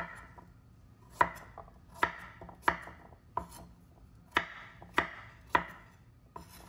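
Miyabi Kaizen chef's knife chopping peeled butternut squash into cubes on a wooden cutting board: about nine sharp knocks as the blade cuts through and strikes the board, at an uneven pace.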